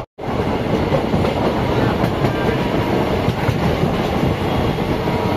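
Indian Railways 12348 Sahid Express passenger coach running steadily on the track, the wheels' noise on the rails filling the sound.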